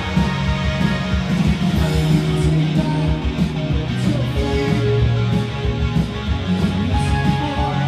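Live rock band playing, with strummed electric guitars over a steady drum beat, recorded from the audience.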